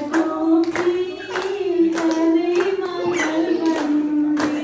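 A woman singing through a microphone, holding long notes, with a group clapping along in a steady rhythm of about two claps a second.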